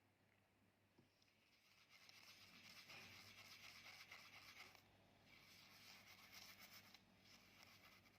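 Faint scratchy rubbing of a paintbrush stroking across a surface, in two stretches with a short break between them.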